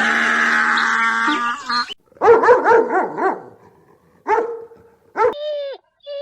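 A long, steady animal call, then a quick run of dog yips and barks, a couple of single barks, and short falling whines near the end.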